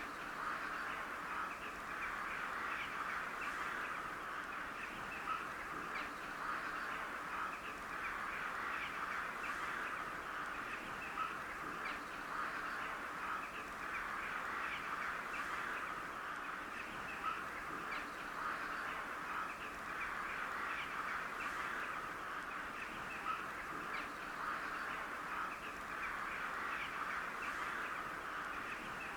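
A large flock of crows cawing, many birds calling over one another in a dense, steady chorus, with a few sharper calls standing out now and then.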